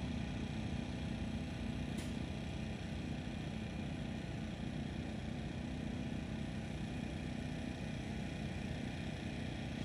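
An engine idling steadily with a low, even hum, and one faint click about two seconds in.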